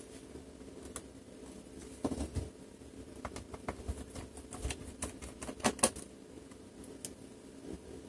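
Irregular light clicks and taps of hands handling a laptop's plastic base and small tools on a desk, over a faint steady hum.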